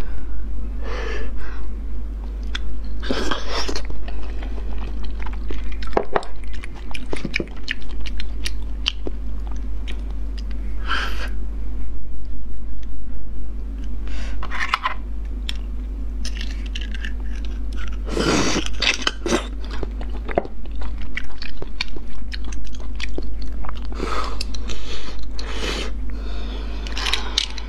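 Close-miked mouth sounds of a person eating spiced beef bone marrow: sucking it from the bone and chewing wetly, with many sharp clicks and smacks.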